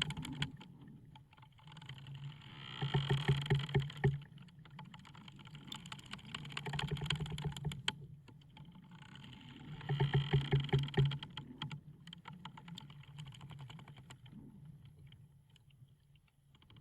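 Wooden ship's timbers creaking: long, slow creaks made of rapid ticks swell and fade about every four seconds over a steady low hum, dying down after about twelve seconds.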